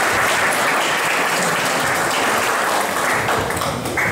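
Audience applauding steadily in a room, the clapping stopping near the end.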